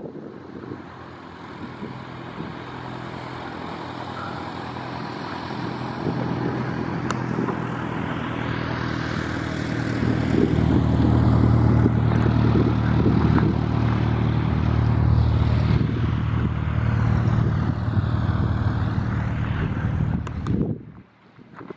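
A nearby aircraft engine running with a steady low drone that swells about ten seconds in and holds, then cuts off abruptly near the end.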